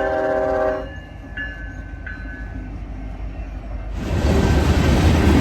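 A train horn's multi-note chord sounds and cuts off about a second in. Near the end a passing train comes in suddenly with a loud, deep rumble.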